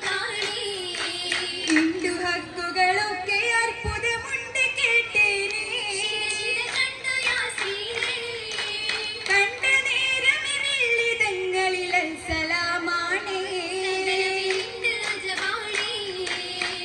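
A group of girls singing an Oppana song in chorus, the sung line rising and falling, with sharp hand claps throughout.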